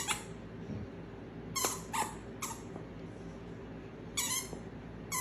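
Small dog yipping: short, sharp, high-pitched yips that drop in pitch, three in quick succession about a second and a half in, with more yips near the start and near the end.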